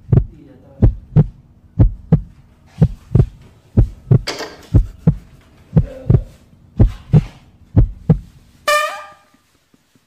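Heartbeat sound effect: deep lub-dub double thumps about once a second over a steady low hum. About 8.7 s in, a short pitched sound with several tones is heard, and the heartbeat stops.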